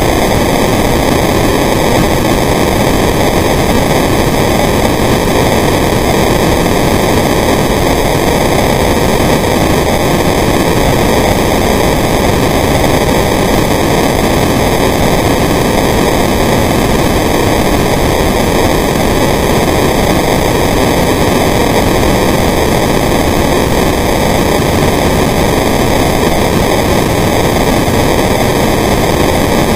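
Loud, steady, unbroken hiss of underwater noise picked up by a camera filming beneath the surface, with no breathing rhythm or bubble bursts in it.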